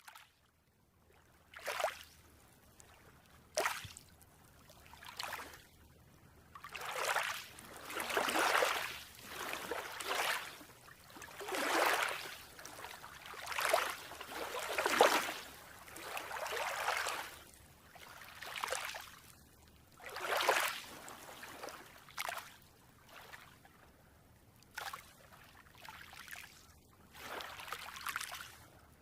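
Small waves washing onto a beach, each wash swelling and falling away about every one and a half to two seconds.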